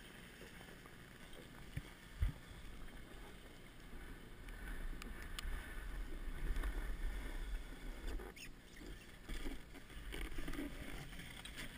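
A snowboard sliding and scraping over packed snow, heard from a camera worn by the rider. There is a sharp knock about two seconds in and a heavier low rumble through the middle.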